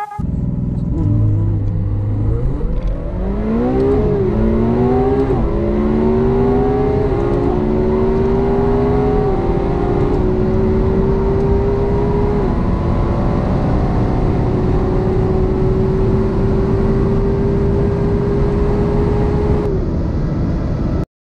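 Supercar engine under full-throttle acceleration, heard from inside the cabin: the engine note climbs steadily in each gear and drops back at each of several quick upshifts, then rises slowly for a long stretch in a high gear before cutting off suddenly near the end.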